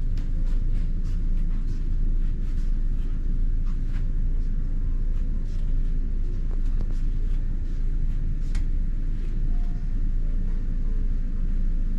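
A loud, steady low rumble with a few faint clicks and taps scattered through it.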